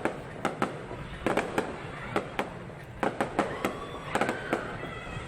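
Aerial fireworks going off: irregular clusters of sharp bangs and cracks, several a second.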